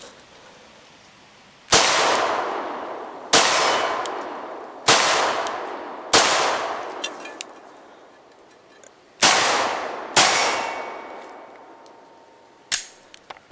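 Six shots from a 9mm Glock 17 pistol, fired one to three seconds apart, each followed by a long echo dying away, with faint ringing from struck steel plate targets. A shorter, sharp crack near the end.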